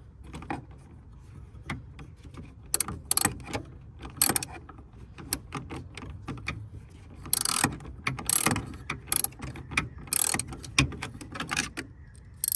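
Small socket-set ratchet clicking in bursts of rapid clicks as it is swung back and forth in short strokes, working a headlamp bulb-mount screw loose.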